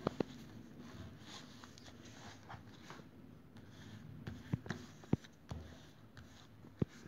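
Fingers pressing and rubbing a freshly applied sticker flat on a paper sticker-album page: a soft scraping rustle of skin on paper, with scattered light taps and clicks, a cluster of them a little over halfway through.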